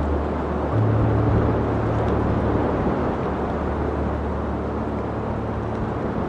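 Ambient background music: long held low bass notes that shift pitch about a second in, under a steady soft noise-like wash.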